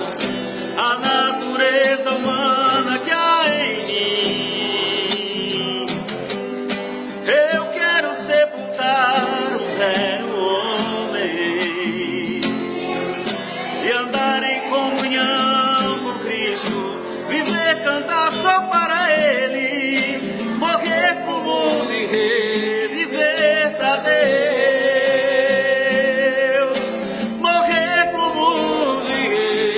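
Men singing a gospel hymn, with vibrato on long held notes.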